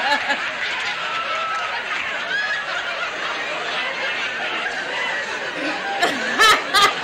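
A studio audience laughing steadily, with a woman laughing loudly in a few short peals near the end.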